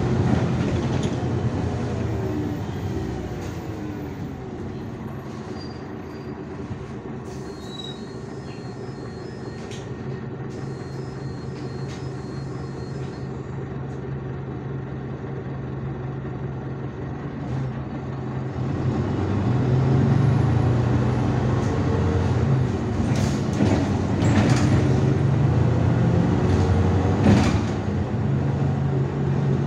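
IVECO Urbanway 12M city bus heard from inside the cabin while under way: its engine and drivetrain hum steadily, easing off in the first few seconds, then pulling harder and getting louder, with a rising whine, from about two-thirds of the way in. A few sharp rattles or knocks come near the end.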